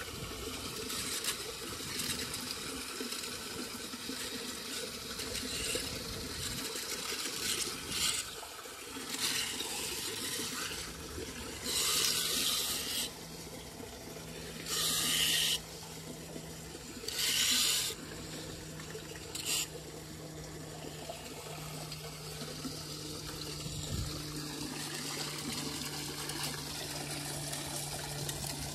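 Runoff water rushing steadily down into a cleared storm drain, with three louder bursts of noise, each about a second long, near the middle. A low steady hum comes in about a third of the way through.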